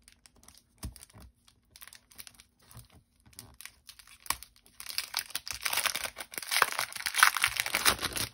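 Clear plastic sleeve around a sticker sheet handled by hand: a few light taps and rustles at first, then continuous crinkling of the plastic from about halfway through.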